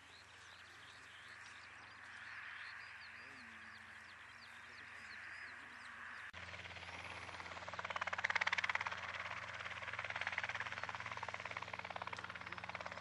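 A radio-controlled scale model helicopter hovering, its motor and rotor running with a steady hum and fast even chopping. It starts suddenly about six seconds in and gets louder about two seconds later. Before it there is only a faint outdoor background with a few short high chirps.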